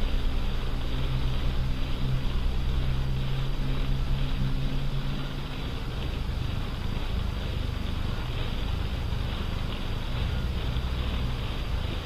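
Steady low mechanical rumble with a noisy hiss over it, easing slightly about halfway through.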